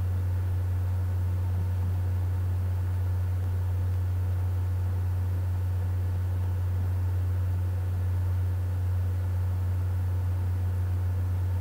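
A steady low hum with faint hiss, unchanging throughout; no other sound stands out.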